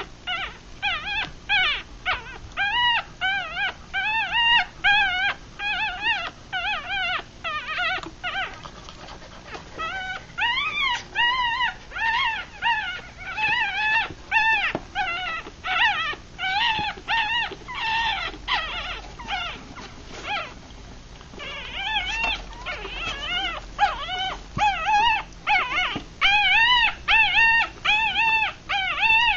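Three-day-old Rat Terrier–Chihuahua cross puppies crying while they nurse: a rapid string of short, high-pitched squeaky cries, about two a second. The cries ease off briefly about a third of the way in and again past the middle.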